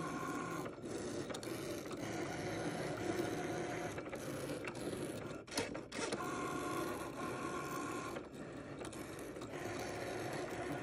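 Cricut cutting machine cutting, its motors whirring as the blade carriage travels and the mat feeds, with whining tones that come and go. There is a short dip and a click about halfway through.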